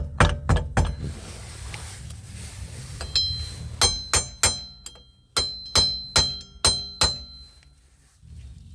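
Hammer blows on a steel wheel hub, tapping it outward from the inside to knock it loose. About a dozen sharp metallic strikes in three quick bursts, the later ones ringing briefly after each hit.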